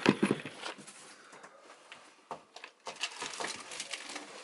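Handling noise from unpacking: rustling and light clicks and knocks as a plastic kids' cup and other items are handled beside a cardboard box, loudest just at the start.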